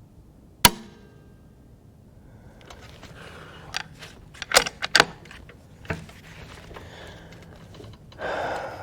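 Rifle being dry-fired: one sharp, loud click with a short ring as the trigger is pulled on an empty chamber, then a run of smaller clicks and clacks a few seconds later as the action is cycled to re-cock it. A short rustling noise follows near the end.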